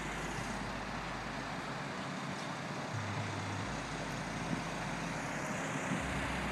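Deep bass notes from a pair of Skar VVX-12 12-inch subwoofers playing music in the car, changing pitch every second or two, under a steady background hiss.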